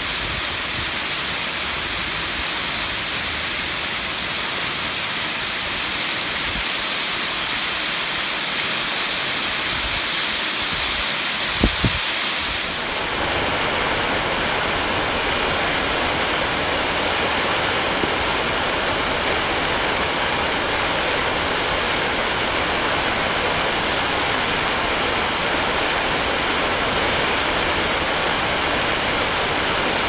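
Waterfall: water pouring and spraying down a mossy rock face, a steady rushing hiss. A brief thump comes about twelve seconds in, and a second later the rush turns duller, losing its high end.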